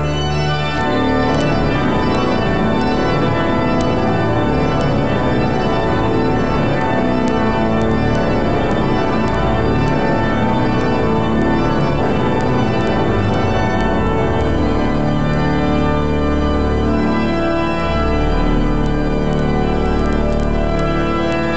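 Salisbury Cathedral's pipe organ playing full, sustained chords, with deep pedal bass notes that grow heavier in the last third.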